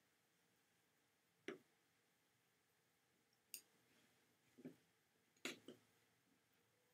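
Computer mouse clicking: about five faint, sharp clicks spread over several seconds against near silence.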